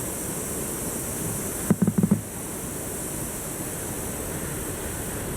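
Steady wash of ocean waves breaking on a shore, with a brief cluster of several quick low knocks about two seconds in.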